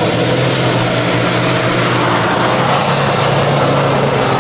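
Off-road 4x4's engine running with a steady, unchanging note.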